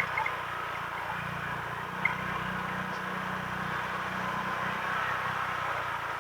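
Honda PCX160 scooter's single-cylinder engine running steadily under way, with a short click about two seconds in.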